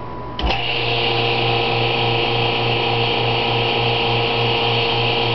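Laboratory vacuum pump switched on with a click about half a second in, then running steadily with a hum and a high hiss as it draws a water sample through a membrane filter.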